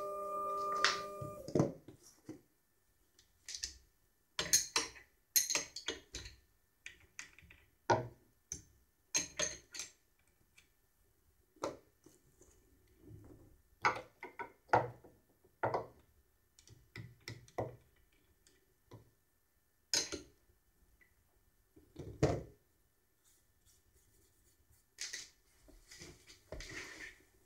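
The rotary-tool spindle of a small CNC mill runs down and stops about a second in. Then come scattered metal clicks, clinks and knocks at irregular spacing, as a wrench loosens the collet nut and the cutting bit is changed.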